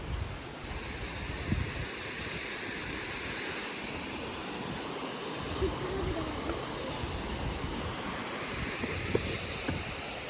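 Steady rush of flowing water from a mountain stream or small waterfall, with a few faint knocks.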